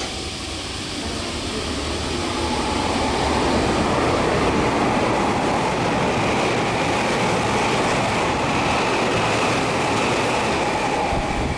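Meitetsu 2000 series μSKY train passing through a station at speed without stopping. The rush of wheels and air grows over the first few seconds, then holds steady as the cars go by, with a faint steady whine riding on it.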